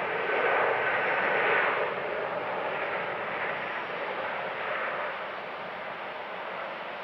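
Airbus A320-family airliner's jet engines, heard as a steady rushing roar as it rolls along the runway, louder for the first two seconds and then settling a little lower.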